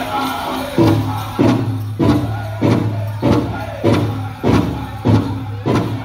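Powwow drum group playing for a chicken dance: the big drum struck in a steady beat, about three strikes every two seconds, coming in about a second in, with the singers' voices at the start.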